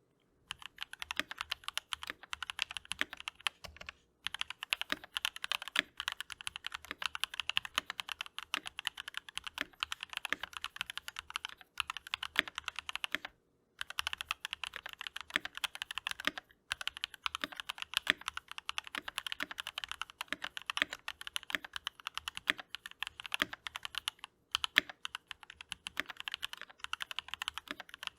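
Keychron V1 mechanical keyboard with DCX keycaps being typed on quickly: a dense, rapid run of key clacks broken by a few short pauses.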